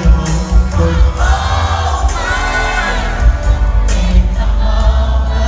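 Live R&B band playing loudly through a venue PA with heavy bass, voices singing a long, drawn-out melody over it, heard from among the audience.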